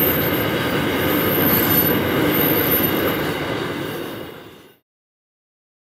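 Loaded iron ore hopper wagons rolling past on the rails: a steady rumble of wheels on track with a thin high squeal above it. The sound fades out to silence about four and a half seconds in.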